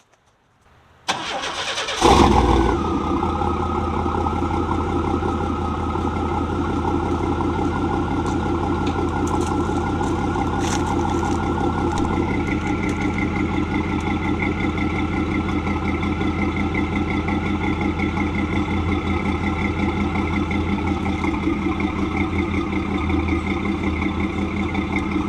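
OBS pickup truck's engine cranked by the starter about a second in, catching a second later with a loud burst, then settling into a steady idle through its dual-tip exhaust.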